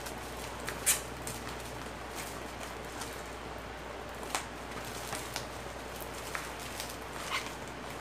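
Bubble wrap being handled and pulled away, with scattered sharp crackles and pops; the loudest comes about a second in.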